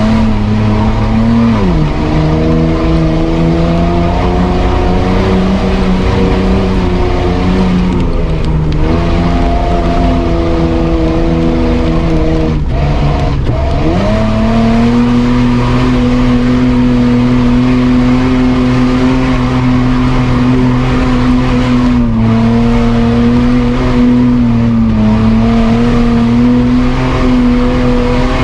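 Mitsubishi Pajero engine running hard under load, heard from inside the cabin. The revs drop sharply at about two, eight and thirteen seconds in, then climb back and hold steady and high for the second half.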